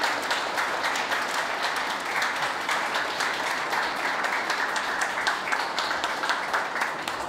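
A group of people applauding steadily, many hands clapping at once.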